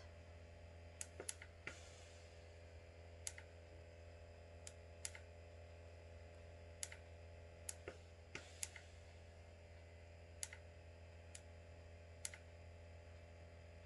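Near silence: a low steady hum with about a dozen faint, irregularly spaced small clicks.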